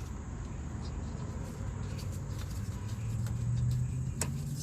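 A motor vehicle's engine running as a low, steady drone, growing louder and rising slightly in pitch about three seconds in, with a few faint clicks over it.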